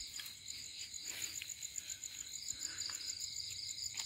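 Crickets trilling steadily in a high, rapidly pulsing chorus, with a few faint rustles of footsteps in leaf litter.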